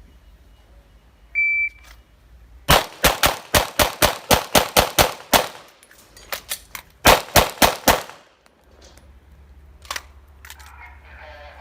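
A shot timer beeps once, then a Glock 34 9mm pistol fires a fast string of about a dozen shots, a few fainter pops, and a last quick string of four shots.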